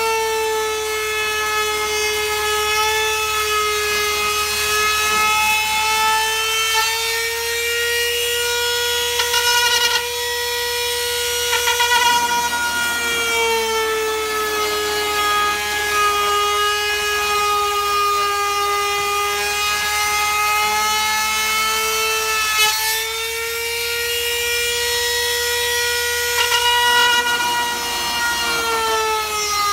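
Handheld trim router running a flush-trim bit at high speed as it cuts excess HPL laminate flush with the tabletop's edge. It makes a steady high whine whose pitch slowly sags and recovers as the load changes, with a few brief rasps of the bit cutting.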